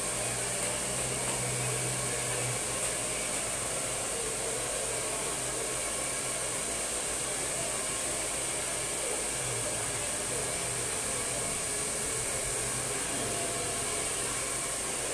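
Handheld hair dryer running steadily, blowing air through long hair, with an even rushing hiss that stays at one level throughout.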